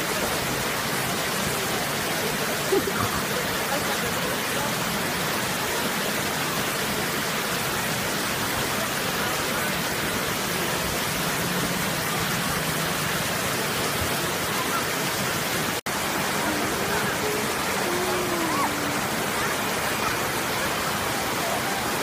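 Waterfall and cascading stream water rushing steadily, with a brief dropout about two-thirds of the way through.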